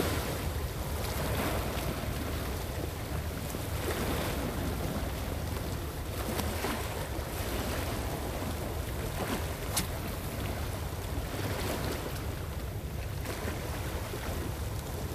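Small waves washing against a rocky shore, swelling and falling back every few seconds, with wind rumbling on the microphone. A single sharp click about ten seconds in.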